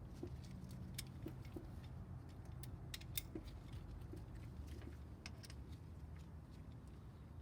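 Scattered light metallic clicks and taps of hand tools and parts being handled, at irregular intervals over a low steady hum.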